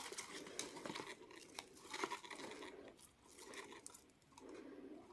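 Paper and cardboard packaging crinkling and rustling as a small gift box is unwrapped, in irregular faint crackles that thin out toward the end.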